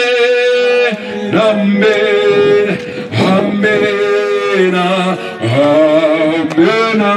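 Male voices singing a gospel song in long drawn-out notes, amplified through microphones and a PA loudspeaker.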